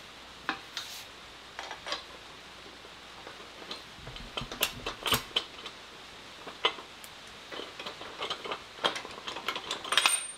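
Steel backhoe thumb and its mounting bracket clinking and knocking against a John Deere 270B backhoe boom as they are handled into place. The light metallic clicks and clanks come irregularly, busier about four seconds in and again near the end, where there is a short high squeak.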